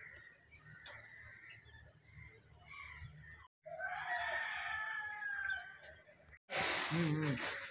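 A bird calling: one long call of about two seconds, a little before the middle, after faint high chirping. Near the end a loud rushing noise starts suddenly, with voices in it.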